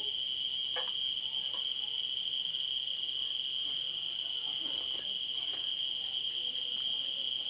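Crickets chirring in one continuous high-pitched trill, with a few faint clinks of a spoon against a plate.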